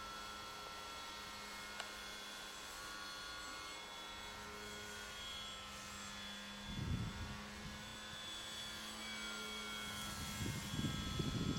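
Electric motor and propeller of a Multiplex Park Master 3D model plane whining steadily overhead in flight. Gusts of wind buffet the microphone about seven seconds in and again near the end.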